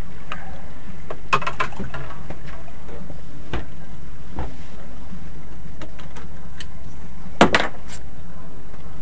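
Small outboard motor running steadily at low trolling speed, a constant low hum. A few light clicks about a second and a half in and a sharper knock near the end, as the fishing rod and boat fittings are handled.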